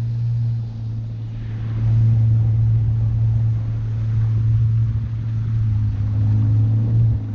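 Motorboat engine running at a steady low drone, dipping briefly about a second in.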